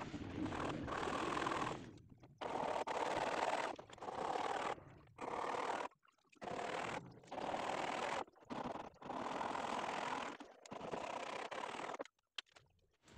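Hand saw cutting through a wooden plank in repeated rasping strokes, broken by several short pauses.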